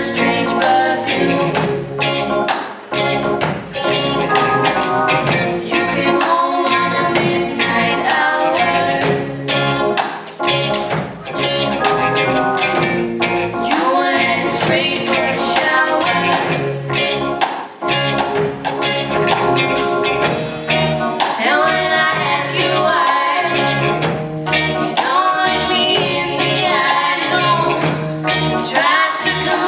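Live band playing: female vocals sung over electric guitar, bass guitar, synthesizer organ and a drum kit keeping a steady beat.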